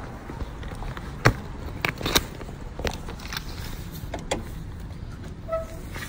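Steady rumble of wind and handling on a phone microphone, broken by a handful of sharp clicks and knocks, the loudest about a second in and another around two seconds, as a glass entrance door is handled and passed through.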